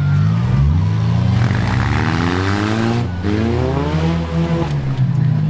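Demolition derby cars' engines revving hard, several at once, the pitch climbing, falling away sharply about three seconds in, then climbing again.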